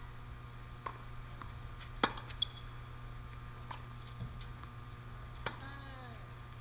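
Faint sharp pops of a tennis ball being struck and bouncing, a few separate hits with the loudest about two seconds in, over a steady low hum. A short squeak that falls in pitch comes about five and a half seconds in.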